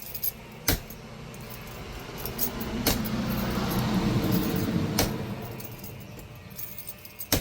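A bump key in a door lock struck four times, sharp metallic clicks about two seconds apart, as the locksmith tries to knock the pins into place. A rushing noise swells and fades in the middle.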